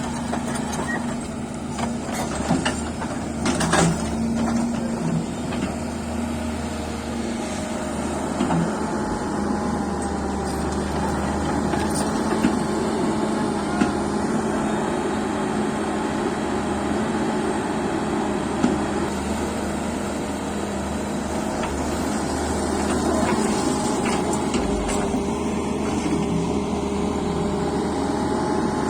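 Heavy equipment diesel engine running steadily, with a few short clanks along the way.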